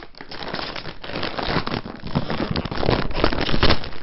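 Crinkly chip bag rustling and crackling as potato chips are poured out onto a plate, right by the microphone, loudest a little after three seconds in.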